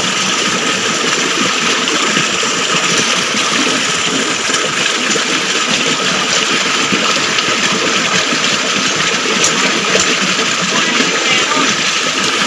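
Stream water rushing steadily over rocks, an even, unbroken rush.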